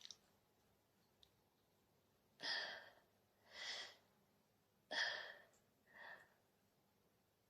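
Faint close-miked breathing: four breaths in two pairs, the first of each pair starting abruptly and the second swelling up and fading.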